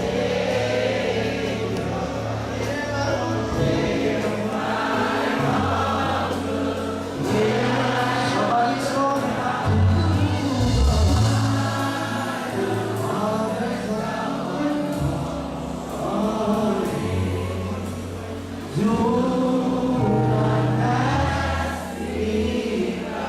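Gospel choir singing with a live band, sustained bass notes underneath.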